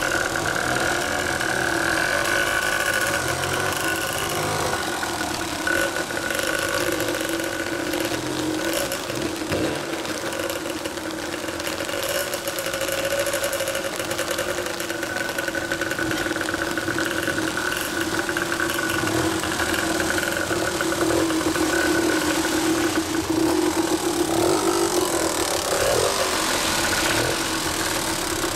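Two-stroke dirt bike engines running steadily at low speed, among them a Kawasaki KDX125 with an RSV expansion chamber.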